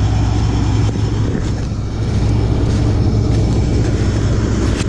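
John Deere combine's diesel engine running steadily with a low, even drone.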